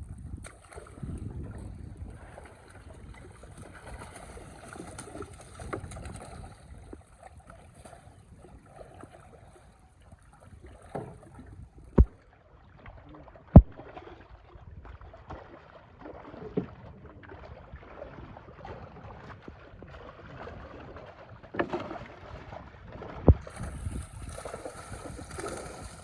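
Water sloshing and splashing around a small boat on a fish pond, broken by a few sharp knocks; the loudest come about halfway through and again near the end.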